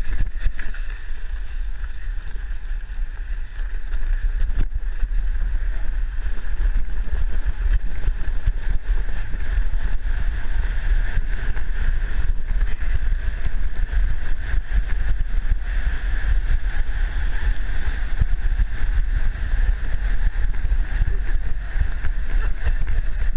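Plastic sled sliding fast down a bumpy snow slope, a steady rumbling scrape over the snow, with wind buffeting the microphone throughout.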